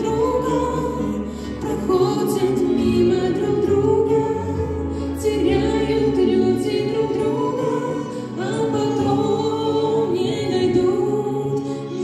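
A man and a woman singing a song as a duet into handheld microphones, with musical accompaniment underneath.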